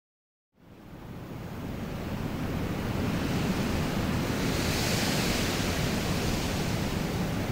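A steady rushing noise, even across all pitches, that fades in from dead silence about half a second in and then holds steady.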